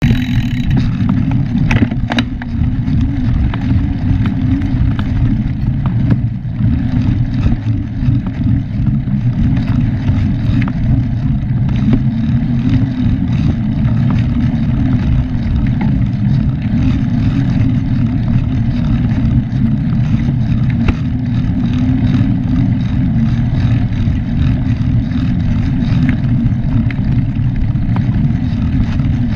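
Wind buffeting the microphone of a mountain bike rider's action camera: a steady low rumble, with occasional faint clicks and rattles from the bike on the dirt trail.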